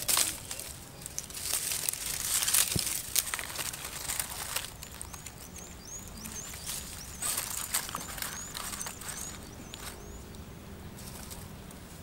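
Dry grass and twigs rustling and crackling as they are heaped over a small tinder flame to start a fire, busiest in the first few seconds. Midway a small bird gives a quick series of high chirps, about two a second, for several seconds.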